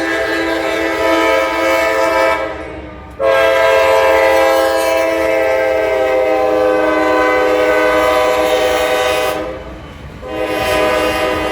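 Norfolk Southern freight locomotive air horn sounding in three loud, steady blasts. The first blast ends about two and a half seconds in, a long blast of about six seconds follows, and another starts near the end. A low train rumble runs underneath.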